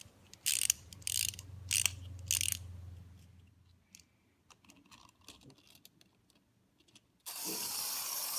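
Small plastic wind-up toy train being wound, its clockwork ratchet clicking in about four short bursts. Near the end the released train's clockwork motor starts a steady whirr as it runs across a cardboard book page.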